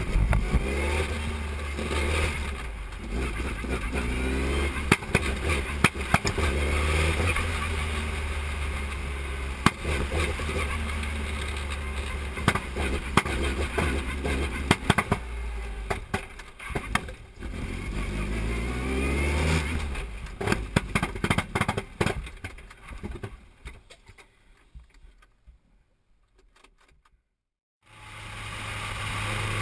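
Formula 3 single-seater race car engine heard from the cockpit, revving repeatedly with rising pitch as it accelerates through the gears, with frequent sharp clicks over it. Near the end the sound fades to near silence for a few seconds, then fades back in.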